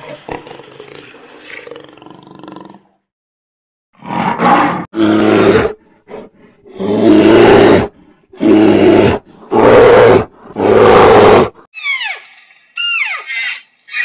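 A large animal roaring about six times in a row, each roar rough and loud, after a lower growl at the start. Near the end come several short, high calls that each slide steeply downward.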